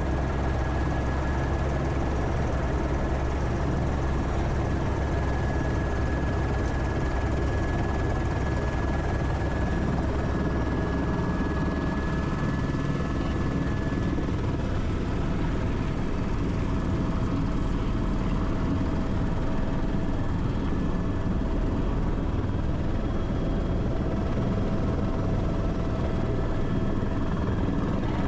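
Helicopter running steadily: a constant low rotor and engine drone with a thin, high, steady whine over it.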